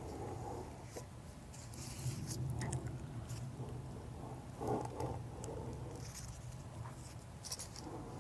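Handling noise: clear plastic gloves rustling and crinkling as hands turn a diesel fuel pump over, with a few light clicks, over a steady low hum.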